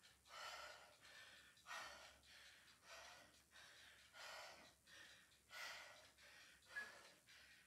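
A woman breathing hard while exercising, faint, with a breath about every second and a half.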